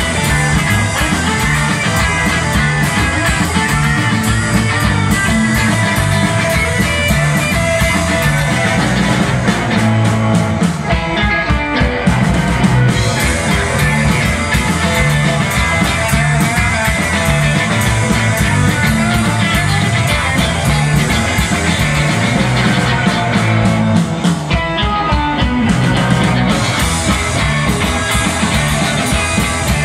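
A live surf rock band playing loudly on two electric guitars, bass guitar and drums, with a change in the drum and guitar pattern twice.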